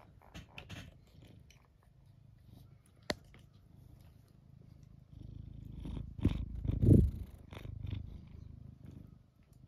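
Domestic cat purring close to the microphone, a low rumble that swells about halfway through. There are louder muffled bumps around six to seven seconds in as the cat's face comes right up against the phone, and a single sharp click about three seconds in.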